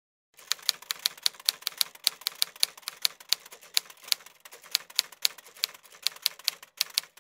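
Typewriter-key sound effect: a rapid, irregular run of sharp clacks, several a second, starting about half a second in and pausing briefly near the end, timed to text being typed onto the screen.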